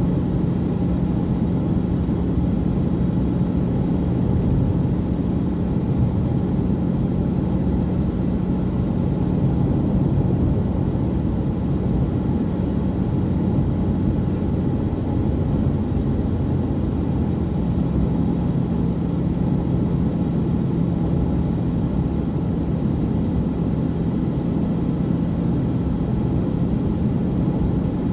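Car driving at a steady speed: steady engine and road noise with a low hum.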